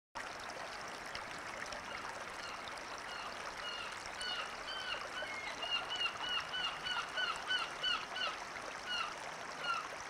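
Stream water running steadily, with a bird calling in a rapid series of short, arched calls, about three a second, from about four seconds in until near the end.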